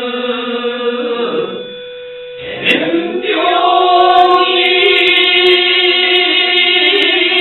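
Group of voices chanting shigin, a Japanese recitation of a Chinese poem, in long held, wavering notes. They break off for a breath about a second and a half in, come back about a second later, and sound fuller from about four seconds on.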